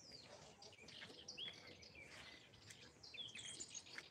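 Faint bird chirps, several short calls scattered over quiet outdoor background noise.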